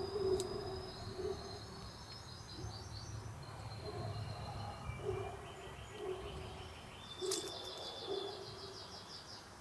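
Spanish Timbrado canary singing: held whistled notes alternating with rapid rattling trills, with a lower trill in the middle and the strongest trill starting about seven seconds in.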